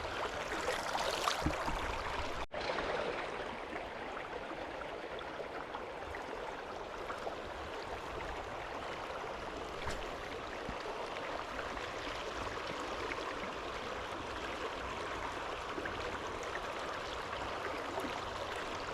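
Steady rush of creek water flowing in the current, briefly cut off about two and a half seconds in.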